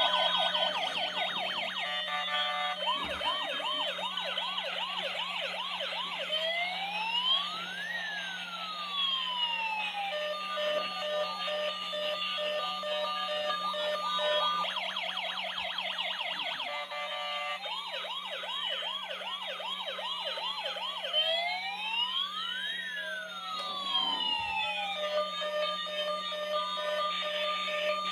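Electronic siren sounds from a battery-powered toy emergency vehicle, cycling through a fast warbling yelp, slow rising and falling wails and steady tones over a low hum; the sequence starts over about halfway through.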